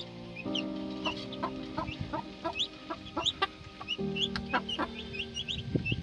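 Parrot-beak Aseel chicks peeping in many short, high, rising chirps, with a hen's short clucks, over background music of sustained notes.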